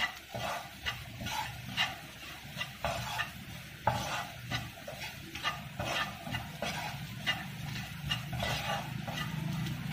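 Wooden spatula stirring and scraping diced carrots, peas and onion in a non-stick frying pan, about two strokes a second, over a faint sizzle as the vegetables sauté.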